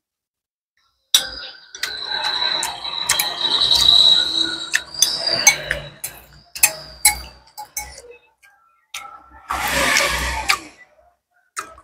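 Close-up eating sounds: a metal spoon clicking against a glass bowl again and again, with chewing, and a louder noisy slurp from the raised bowl about ten seconds in. A thin high-pitched squeal runs for a few seconds with the first eating noises.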